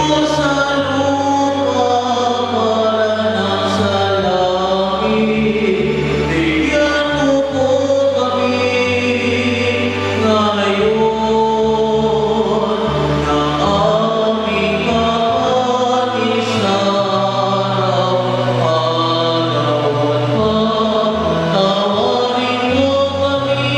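Church choir and congregation singing a slow sung prayer together, with held low accompanying notes underneath.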